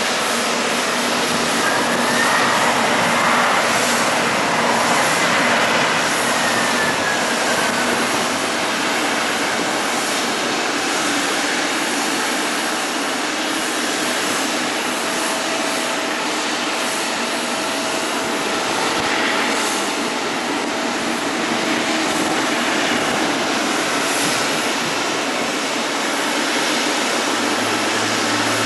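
Jet airliner engines running, a steady loud rush with a whine that rises and then falls in pitch a few seconds in.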